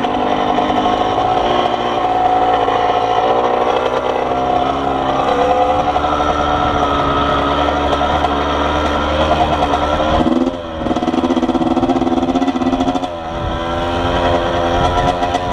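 Yamaha YZ80 two-stroke single-cylinder dirt bike engine running under way on a trail, the note rising and falling with the throttle, with two brief drops around ten and thirteen seconds in.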